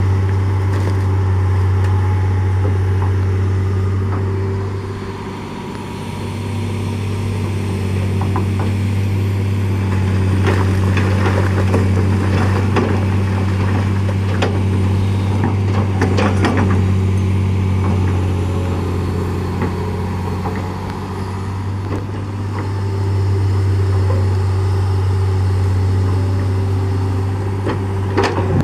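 Heavy diesel engine of road-demolition machinery running steadily, easing off briefly twice, with a cluster of metallic clanks and scrapes about ten to seventeen seconds in and another near the end.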